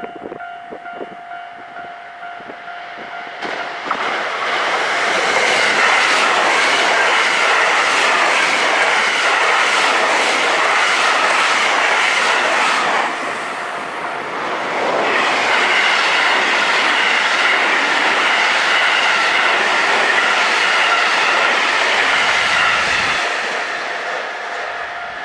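Level crossing alarm ringing steadily, then two 223 series electric trains passing one after the other in opposite directions, wheels clattering over the rail joints. The crossing alarm is heard again in the short gap between the trains and as the second one fades near the end.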